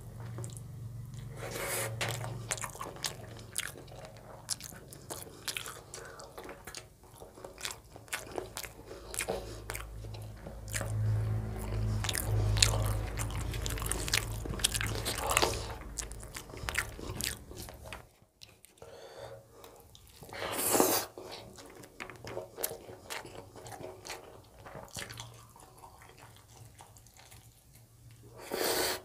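Close-up chewing and wet mouth sounds of a person eating rice and chicken Afghani curry by hand, with many short smacks and clicks.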